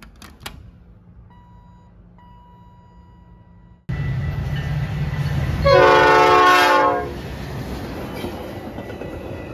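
A few clicks from an elevator call button and a faint steady hum, then a Metra commuter train's diesel locomotive approaching a grade crossing with a loud rumble. Midway it sounds its horn in one chord blast of just over a second, the loudest sound, and the rumble carries on afterwards.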